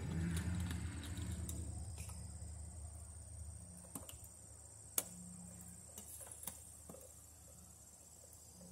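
Steady high chirring of insects, with a low rumble that fades over the first couple of seconds. A few sharp clicks near the middle come from a hand screwdriver working the screws of a plastic weatherproof outlet cover.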